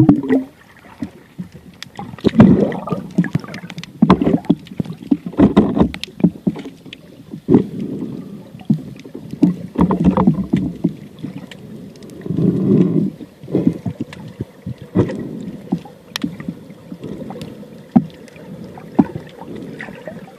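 Water sloshing and splashing around the camera in irregular surges, with scattered sharp clicks.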